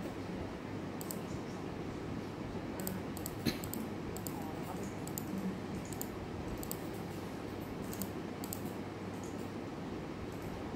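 Scattered clicks of computer mice and keyboards over steady room noise, with one sharper click about three and a half seconds in.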